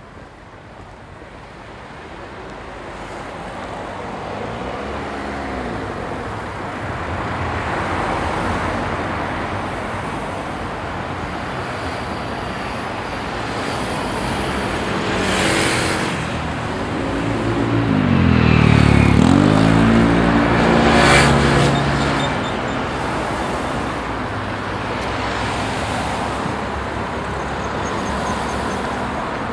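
Moderately busy street traffic: a steady wash of passing cars that builds over the first few seconds. About two-thirds of the way through, one vehicle passes louder and closer, its engine note dropping and then rising again.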